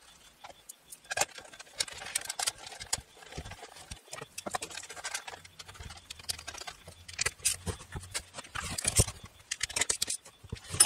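Plastic ignition cover being fitted onto a small two-stroke motorcycle engine's crankcase and its bolts turned in with a hand driver: irregular clicks, taps and rattles of plastic and metal, busiest near the end.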